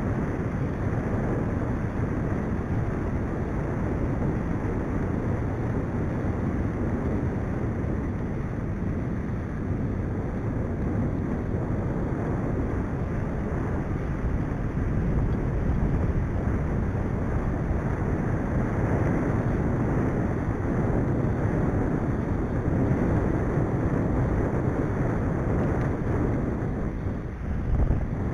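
Steady wind noise buffeting the microphone of a camera on a moving mountain bike, mixed with the rumble of riding along a tarmac lane. Near the end it dips briefly, then there is a short louder bump.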